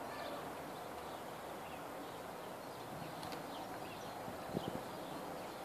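Steady outdoor background hiss with scattered faint high chirps, and two or three short knocks close together about four and a half seconds in.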